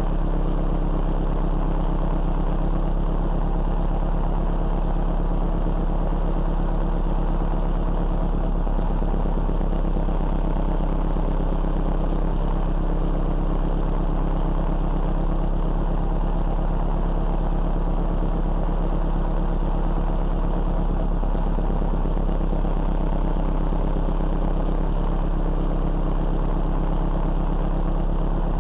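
Car engine idling steadily at an even, unchanging speed.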